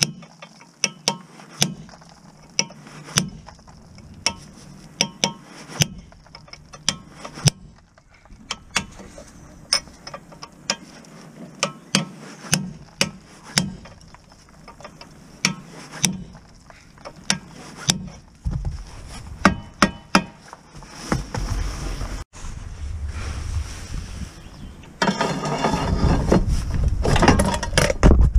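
A ratchet spanner being worked back and forth on a bolt at the front suspension lower arm, giving sharp clicks one or two at a time. Near the end, louder rustling and rumbling handling noise takes over.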